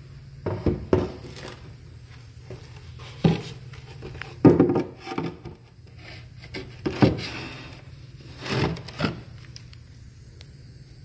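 Footsteps on new wooden stair treads: a handful of uneven thuds, often in pairs, with some rubbing between them.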